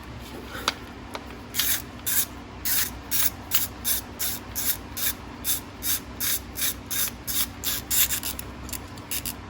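Hand tool working on the engine in a steady run of short rasping strokes, about two a second, over a faint steady hum.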